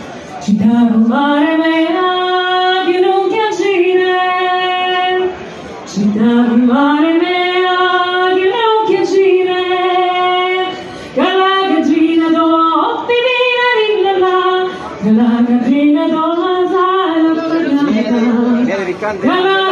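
A female singer's voice singing a slow melody in four long phrases of held, sliding notes, with short breaks between them.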